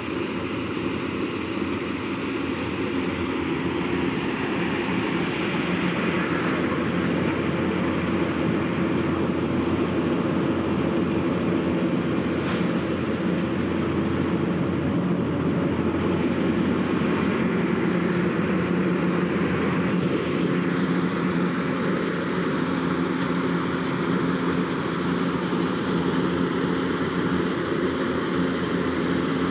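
Engine-driven seed cleaning and grading machine running steadily: a constant mechanical drone with a few steady low tones, along with the rattle of its shaking sieve and seed pouring through it.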